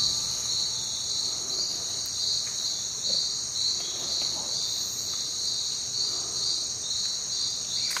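Chorus of tropical rainforest insects: a steady high-pitched buzz with a second high call pulsing about three times a second.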